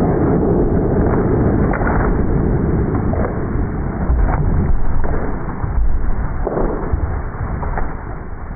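Slowed-down .308 rifle shot fired point-blank into a ballistic dummy head: a long, deep rumble with scattered sharp crackles, fading over the last couple of seconds.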